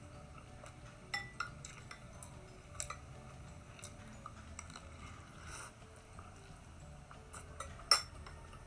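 Metal spoon and fork clinking and scraping against a glass bowl while eating. There are scattered light clinks, and one sharp, much louder clink near the end.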